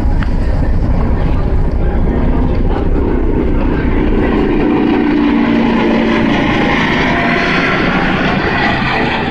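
Star Ferry under way: a loud, steady engine drone and water rushing past the hull, with wind buffeting the microphone. The buffeting is heaviest in the first few seconds, and the rushing water grows stronger in the second half.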